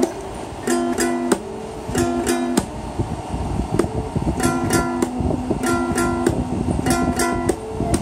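Small toy acoustic guitar strummed in short groups of two or three strokes, the same chords repeated with brief pauses between.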